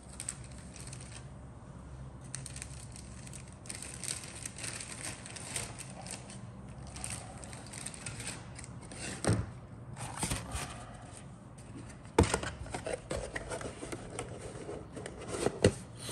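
Plastic model-kit parts and their cardboard box being handled: irregular scraping and rustling, with three sharp knocks in the second half.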